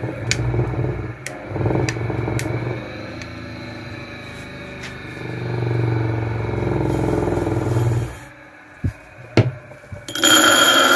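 Old Italian bench grinder's electric motor running with a steady hum and a few clicks, dying away about eight seconds in. Near the end comes about two seconds of loud, harsh noise with ringing tones, which stops abruptly.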